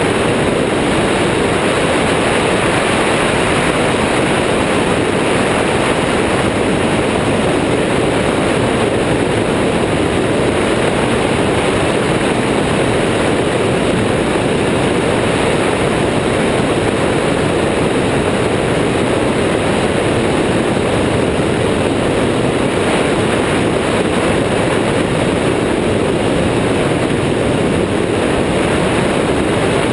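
Airborne XT Tundra ultralight trike in cruising flight: the steady run of its engine and pusher propeller mixed with a constant rush of wind over the wing-mounted microphone, unchanging throughout.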